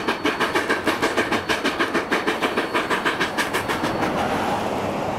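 Narrow-gauge K-28 2-8-2 steam locomotive No. 476 working upgrade, its exhaust chuffing in a fast, even beat of about five a second. The beats blur into a steady rush near the end.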